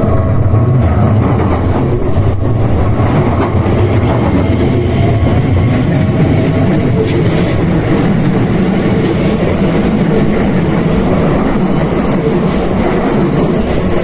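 Keikyu 1000-series electric commuter train passing a level crossing at close range, its wheels rumbling and clattering over the rails, loud and steady throughout. The crossing's electronic warning bell rings steadily underneath and comes through more clearly near the end as the train clears.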